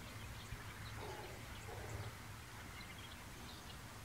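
Faint outdoor ambience: scattered distant bird chirps over a steady low hum.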